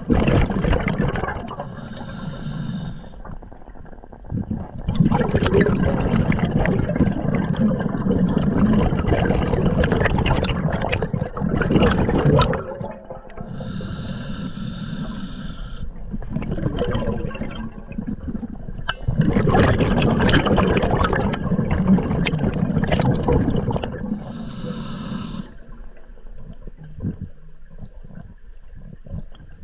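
Scuba diver breathing air through a regulator underwater: long rushing bubble exhales, broken by three short hissing inhales, about two seconds in, about halfway through and near the end.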